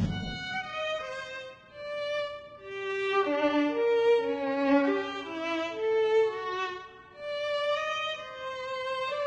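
Soundtrack music: a melody of long held notes, each lasting about half a second to a second.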